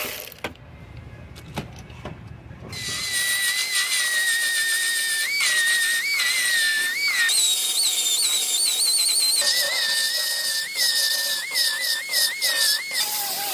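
Narrow-belt sander (belt file) grinding down fresh welds on the sheet-metal quarter-panel seam. It starts about three seconds in with a steady high whine over grinding noise, and the whine's pitch keeps briefly rising and falling back as the belt is pressed onto the metal and eased off.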